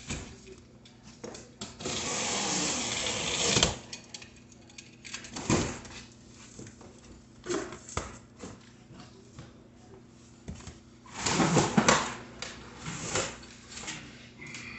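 Cardboard bike carton being opened and unpacked: a long ripping noise about two seconds in, then scattered knocks and rustles of cardboard and packing, and a louder bout of cardboard scraping and rustling about two thirds of the way through as the bike is pulled from the box.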